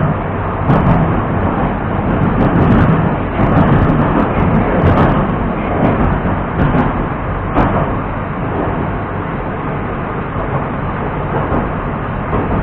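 81-765.2 metro train running at speed, heard from inside the carriage: a loud, steady rumble of wheels on rails, with scattered sharp clicks and knocks from the track. It grows slightly quieter over the last few seconds.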